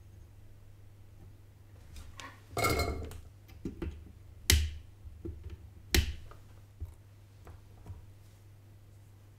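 Clicks and clatter of small hand tools during capacitor soldering on a graphics card: a short rattle about two and a half seconds in, then two sharp snaps about a second and a half apart, over a steady low hum.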